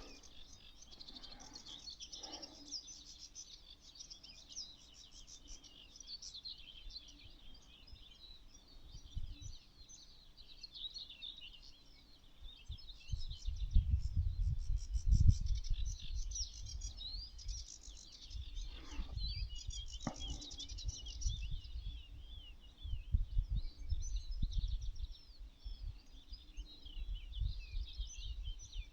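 A dense chorus of many small birds chirping and twittering without a pause. About halfway through, irregular low rumbles begin and come and go.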